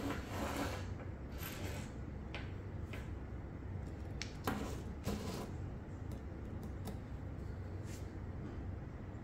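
Parts of a toy solar car kit being handled during assembly: scattered light clicks and rustles, the sharpest about four and a half seconds in, over a steady low hum.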